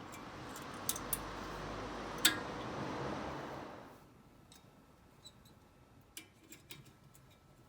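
Light metallic clicks of new brake-pad hardware clips being fitted into a caliper bracket, a few sharp ticks at a time. A steady hiss lies under the first four seconds, then stops.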